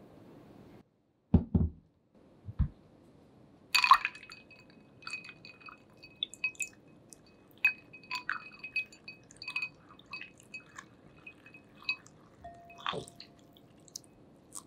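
Two or three dull knocks, then a utensil clinking and tapping over and over against a ringing glass vessel, as when something is stirred in it, for about ten seconds.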